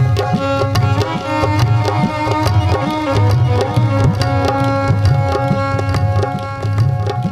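Instrumental music: a steady rhythm of drum strokes with low sliding drum tones under held melodic instrument notes, the instrumental introduction to a Punjabi song.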